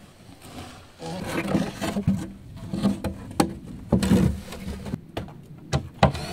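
Knocks and scraping against a wooden dog kennel, mixed with low, rough grunting as a man squeezes in through its narrow opening.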